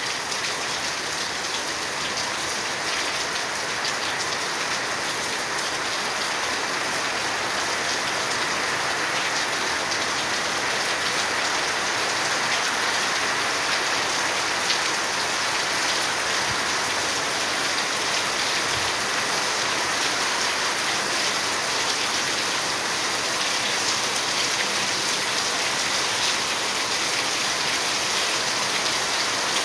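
Steady rain falling: a dense, even hiss of many drops.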